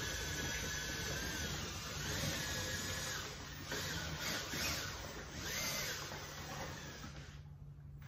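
Power drill spinning a paint-mixer paddle through cow manure and water in a bucket. The motor whine holds steady at first, then speeds up and slows down several times before stopping about seven seconds in.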